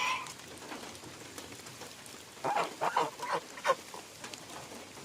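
Domestic geese honking: one call right at the start, then a quick run of about five short honks about two and a half seconds in.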